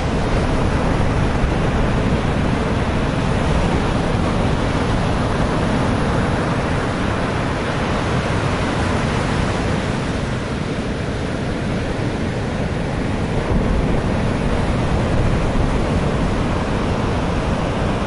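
Heavy sea waves breaking against a concrete sea wall and washing across a flooded promenade: a continuous, dense rush of surf.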